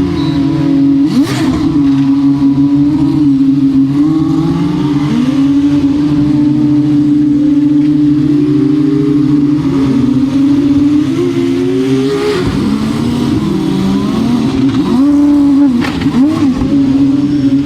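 Formula 2 cars' 3.4-litre turbocharged V6 engines running, one holding a steady high idle while others are blipped, their pitch repeatedly rising and falling. Sharp cracks come about a second in, near 12 seconds and near 16 seconds.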